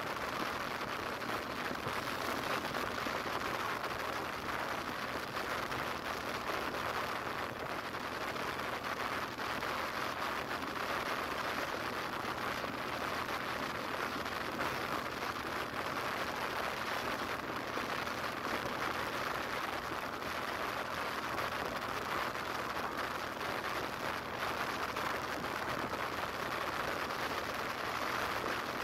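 Steady rushing hiss of wind and road noise on a camera moving along a road, with a faint low hum underneath.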